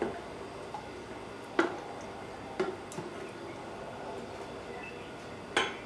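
A silicone spatula and a sauce bottle tapping and knocking against a small stainless steel saucepan as sauce is poured and stirred in it. There are a few sharp knocks, the loudest about a second and a half in and near the end.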